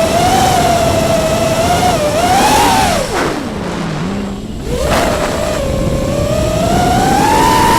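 Electric motors of an FPV model aircraft whining at high speed. The pitch lifts briefly, then drops steeply to a low hum for about a second and a half as motor speed falls off. About five seconds in it returns and climbs gradually.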